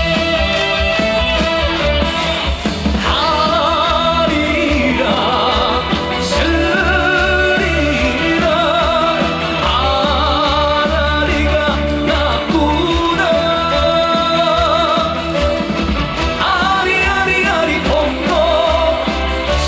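Live Korean trot song over a PA system: a backing track with a steady bass beat under a melody line with heavy vibrato.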